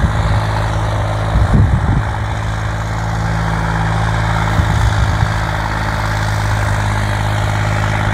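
Swaraj 855 tractor's turbocharged three-cylinder diesel engine running steadily under heavy load as it pulls a disc harrow at speed. Two brief low rumbles come through, about one and a half and five seconds in.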